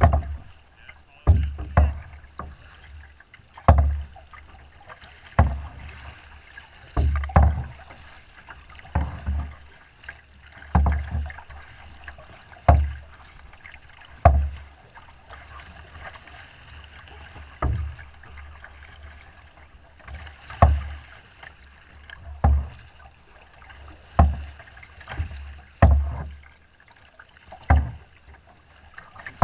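Choppy, wind-driven lake water slapping against the hull of a small boat in a series of dull thumps, one every second and a half to two seconds, over a steady wash of water and wind.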